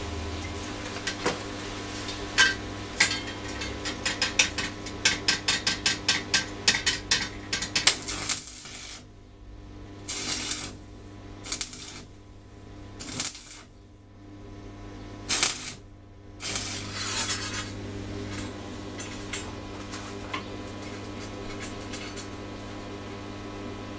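A run of quick, sharp metallic clicks and clinks on steel, then four short bursts of arc-welding crackle: tack welds on a small steel plate. A longer crackling burst follows, then a few scattered clinks, over a steady low hum.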